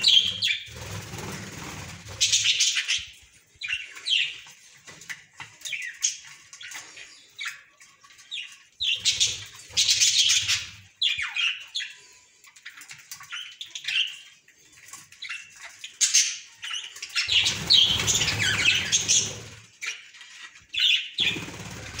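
A flock of budgerigars chattering in many short, high chirps and squawks throughout, with a few bursts of wing flapping, about a second in, near the middle and again near the end.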